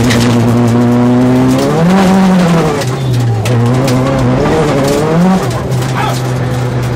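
Rally car engine heard from inside the cabin, running hard on a gravel stage. The revs swell about two seconds in and again around five seconds in, then drop back, with scattered sharp knocks of gravel against the car.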